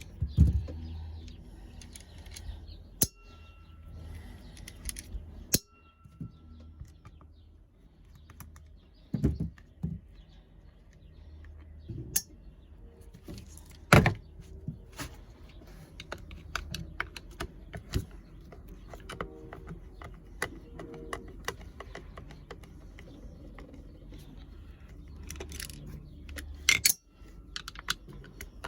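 Screws being backed out by hand with a screwdriver from a cordless impact wrench's plastic housing: scattered small clicks and light knocks of the driver, screws and shell being handled, a few louder sharp knocks among them.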